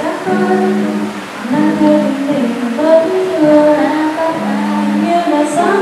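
A teenage girl singing a song into a microphone, with long held notes, accompanied by an acoustic guitar.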